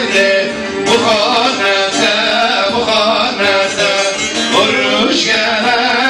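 Men singing a Turkish folk song into microphones, the voices amplified, with a plucked saz (bağlama) playing along.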